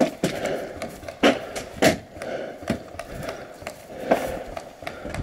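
Paintball markers firing during a game: about seven sharp pops at irregular intervals, some louder and closer than others.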